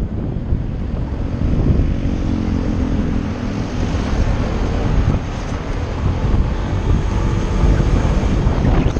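Wind rushing over the microphone of a moving rider, with a vehicle engine tone whose pitch sinks slightly from about one and a half to four seconds in.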